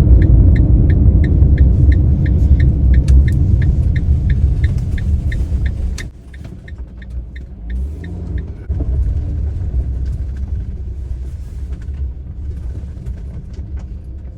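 Dodge camper van's cabin road and engine rumble with an even ticking about three times a second. About six seconds in the ticking stops and the rumble drops to a much quieter low hum as the van slows.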